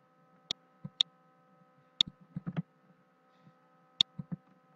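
About ten sharp computer mouse and keyboard clicks, irregularly spaced, over a faint steady electrical hum.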